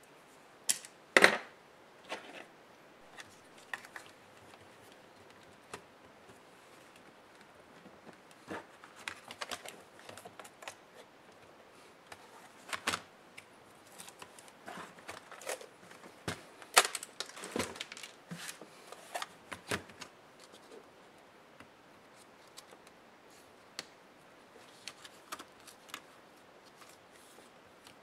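Irregular clicks, taps and light scrapes of an HP Pavilion 15 laptop's parts and small tools being handled during disassembly, with the sharpest clicks about a second in and again around seventeen seconds.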